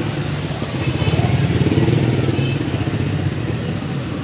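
Motorcycle engines running at low speed, with a rapid, even pulsing that grows louder for about two seconds from half a second in, as if a bike passes close.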